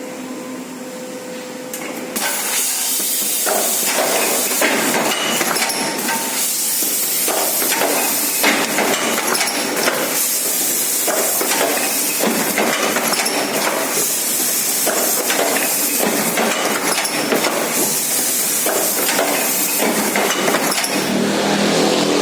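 Case erector machine running: a steady loud hiss with repeated sharp clacks and knocks from its moving parts, starting about two seconds in.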